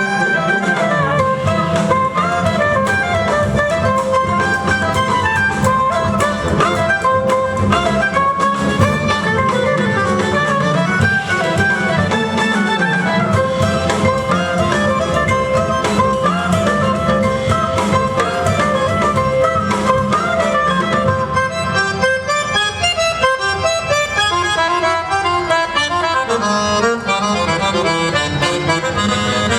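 Instrumental folk music led by a reedy instrument playing a quick, busy melody over a sustained drone, with the texture thinning somewhat about two-thirds of the way through.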